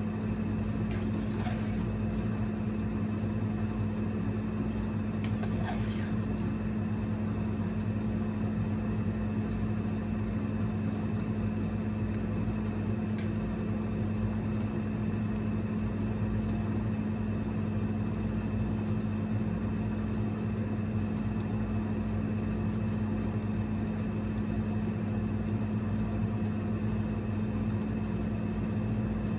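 Steady electric hum and fan noise of a single-burner induction (IH) cooker running while food simmers, with a few faint light clicks.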